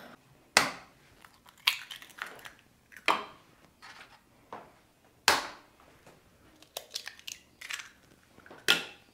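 Eggs being cracked one after another against a metal mixing bowl: a series of sharp taps and shell cracks every second or two, with the crunch of the shells being pulled apart.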